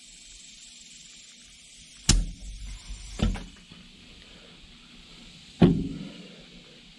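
Sharp clicks and knocks from handling an aerosol can and an air chuck on its brass Schrader valve: a sharp click about two seconds in as the chuck comes off, another knock about a second later, and a heavier thump near the end as the can is set down on the workbench.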